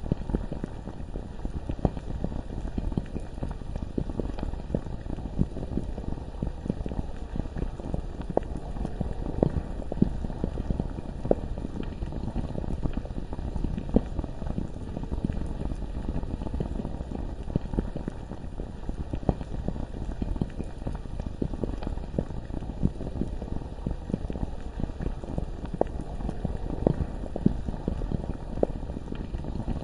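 Bubbling lava ambience: a steady low bubbling bed with frequent, irregular pops and bursting bubbles throughout.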